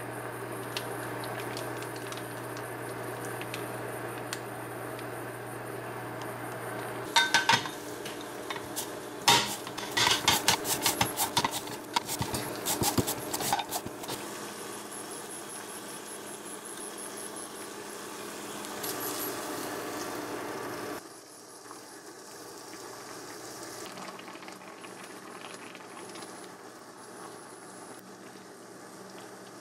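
Home kitchen sounds. A low steady hum comes first. About seven seconds in, a loud run of sharp clicks and scrapes begins as a vegetable is pushed stroke after stroke across a plastic mandoline slicer. Softer pot-and-utensil noise follows, with a wooden spoon stirring a pot of simmering soup near the end.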